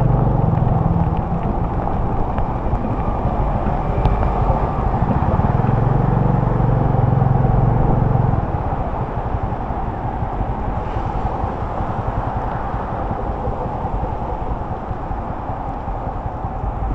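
Motorbike riding on a rain-soaked road: steady rush of wind, rain and tyre spray with a low engine drone that is heavier in the first second and again from about five to eight seconds in, then eases.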